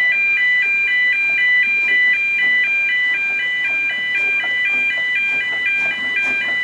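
Road level-crossing warning alarm sounding: an electronic two-tone yodel alternating evenly between a higher and a lower pitch, about two cycles a second, warning road users that a train is crossing the street.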